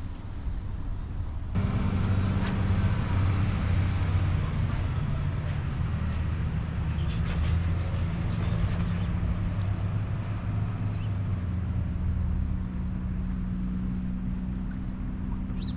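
An engine running steadily with a low drone, coming in abruptly about a second and a half in.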